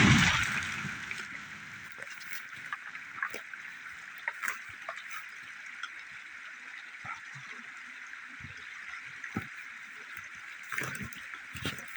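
A chainsaw's engine drops in pitch and dies away in the first second. After that the steady rush of a creek carries on, with scattered small clicks and knocks.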